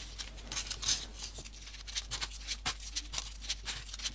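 Folded paper modules being pushed into a modular origami model, making irregular light paper clicks and rustles.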